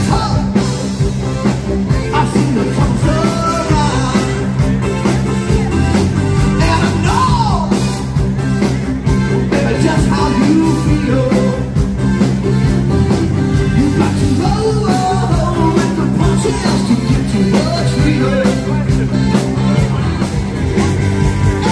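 Live rock band playing: a singer's lead vocal over guitar, bass and drums, amplified through stage speakers.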